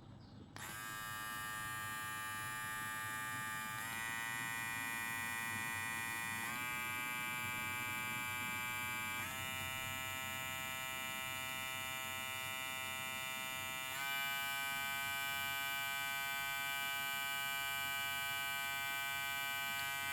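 Kemei KM-2796 cordless hair clipper switched on about half a second in, running with a steady electric whine. The whine steps up in pitch four times, each step a little higher. The running sound is quiet and pleasant to the ear.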